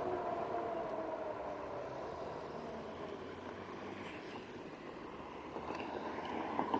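Wind buffeting the microphone of a moving e-bike, with a thin, very high-pitched squeal held for about four seconds that wavers and cuts off near the end.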